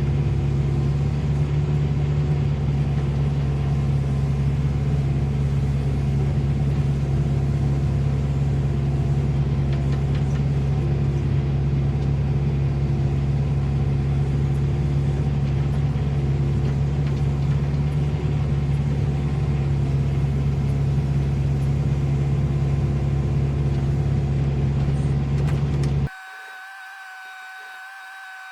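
Excavator's diesel engine running at a steady speed, a constant low drone under load. About 26 seconds in it cuts off abruptly to a much quieter steady whine.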